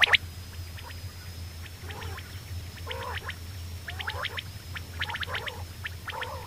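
Quail calling in short groups of two or three quick notes, about once a second, over a steady low hum.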